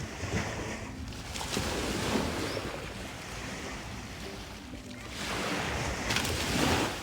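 Small waves breaking and washing up a sandy beach in two surges, the louder one near the end, with a low rumble of wind on the microphone.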